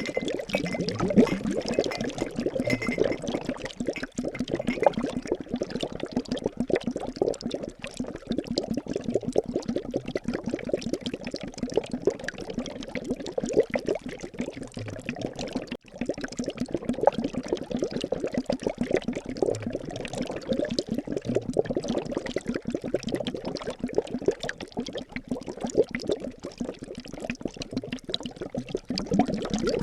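Liquid bubbling and gurgling in a steady, dense stream of small pops, broken by a momentary gap about sixteen seconds in.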